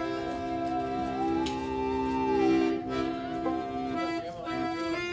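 Bowed musical saw (handsaw) playing a slow melody as one gliding tone with vibrato, sliding up and back down. Steady accordion chords sound under it, with a string band backing.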